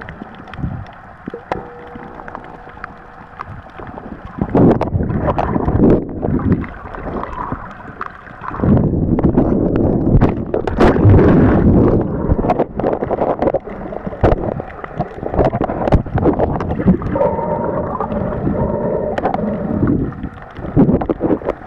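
Water sloshing and bubbling around an underwater camera while snorkeling, heard muffled through the camera housing, with many small clicks and knocks. It is quieter for the first few seconds, then comes in uneven louder surges of water noise, the loudest about halfway through as the camera is swung about.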